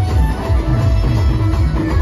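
Loud amplified band music with a heavy, evenly pulsing bass beat, played through large truck-mounted speaker stacks.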